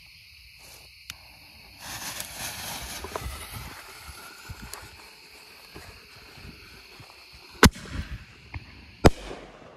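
Consumer aerial ball shell firing from a mortar tube: a short fuse hiss and sputter, then two sharp bangs about a second and a half apart, the lift charge and the shell's break. Crickets chirp steadily underneath.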